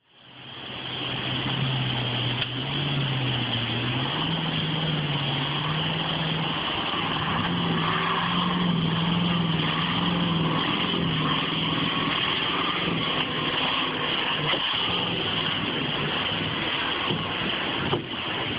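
Engine of a log-loaded truck working hard as it fords a fast river, its note rising and falling, over the steady rush of white water.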